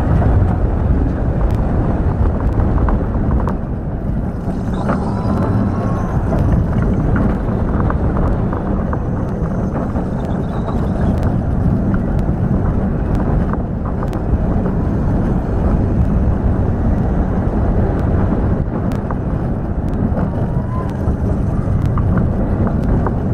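Intamin hydraulic-launch roller coaster train running along its steel track at speed: a continuous rumble of the wheels, with wind rushing over the microphone.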